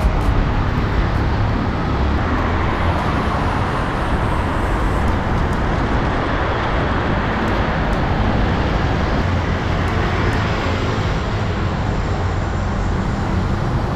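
Steady rushing wind on the microphone of a camera riding on a moving bicycle, with road noise under it.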